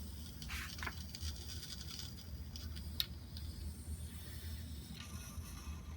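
CO2 cartridge inflator hissing as it slowly fills a bicycle inner tube through the valve, with one sharp click about three seconds in.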